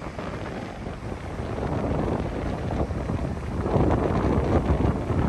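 Strong onshore wind buffeting the microphone, a rough rumbling hiss that grows louder through the second half, with Gulf surf washing in beneath it.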